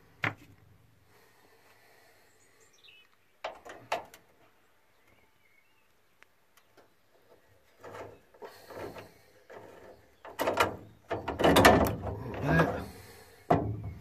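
Metal clicks and clanks from the VW T4 sliding door's latch and lock mechanism as it is unscrewed with a screwdriver and worked loose from the door. A few separate clicks early on, then a busier run of knocks and rattles in the last few seconds.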